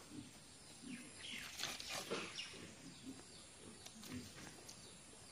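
Faint, scattered farm-animal calls: short low grunts repeated every half second or so, with a few higher falling chirps about two seconds in.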